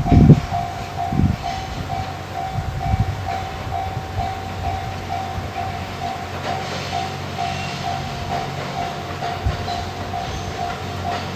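Japanese railway level-crossing alarm ringing steadily, a repeated electronic clang about twice a second, while the Twilight Express Mizukaze train passes over the crossing with a low rumble and heavy wheel thumps in the first few seconds.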